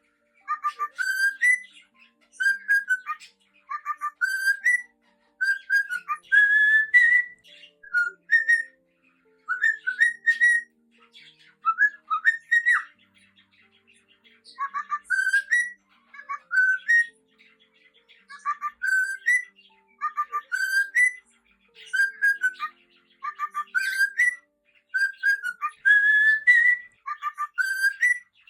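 Cockatiel whistling its song: short, rising whistled phrases repeated every second or two with brief pauses between them.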